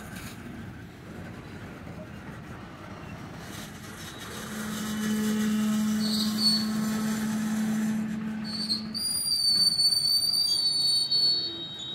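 A train of loaded covered hopper cars rolling slowly past, with the noise of wheels on the rails. A steady low drone runs from about four to nine seconds in, and a high, thin wheel squeal starts near the end.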